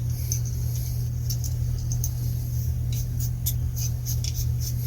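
Small steel pistol parts, a 9mm slide and barrel, being handled and fitted, giving scattered light clicks and taps over a steady low hum.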